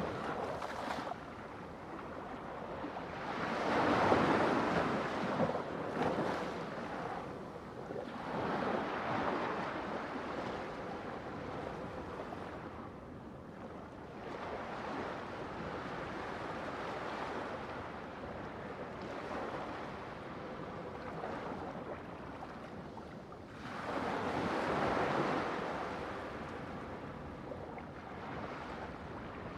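Ocean waves breaking on a shore, with a steady wash of surf between breakers; the loudest breaks come about four seconds in, around nine seconds, and again near the end.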